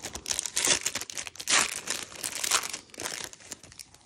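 Foil wrapper of a Pokémon trading card booster pack crinkling and tearing as it is ripped open by hand, with three louder bursts.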